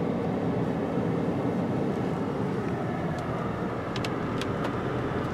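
Steady engine and road noise heard from inside a car driving slowly with the windows up, with a few faint clicks about four seconds in.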